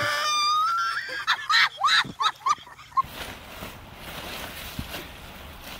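A high-pitched human scream held steady for just over a second, then a quick run of short, rising-and-falling shrieks. Near the middle it gives way to a quieter, even outdoor hiss.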